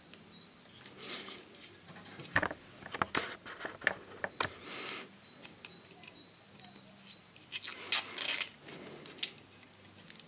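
Small plastic charger block being turned over and picked at with the fingers: a run of scattered clicks, scrapes and crinkles of plastic, busiest about eight seconds in.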